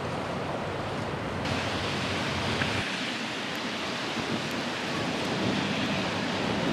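Steady rushing wind noise on the camera microphone, with no distinct events; its tone shifts about a second and a half in and again near three seconds.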